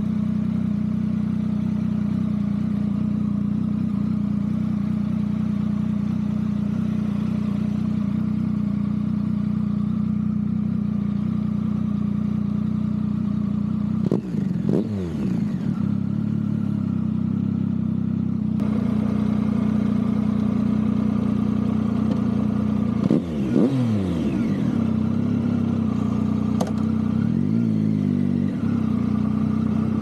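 Triumph Tiger 1050 Sport's inline-three engine, breathing through an SC-Project SC1-R muffler, idling steadily. It is given short throttle blips about halfway through and twice more near the end, the pitch sweeping up and falling back each time.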